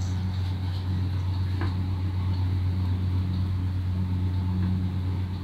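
A steady low hum with a faint second tone above it, with faint scratches of chalk on a blackboard as curves are drawn.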